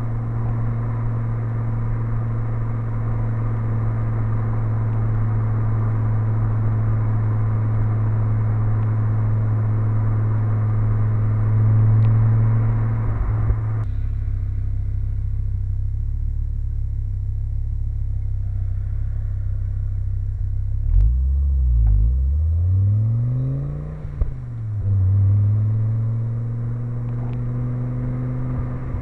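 Audi 200 20v's turbocharged five-cylinder engine and exhaust droning steadily at cruise. After a sudden change about 14 seconds in, the note falls and rises in pitch, with a brief drop in loudness near the middle of that stretch, then settles back into a steady drone.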